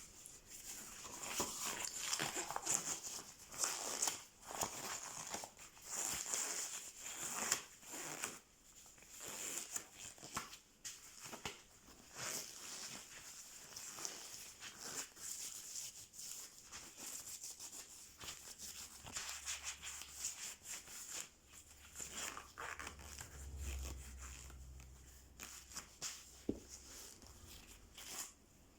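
Irregular rustling and crinkling with scattered light clicks and knocks, like things being handled, and a short low rumble about two thirds of the way through.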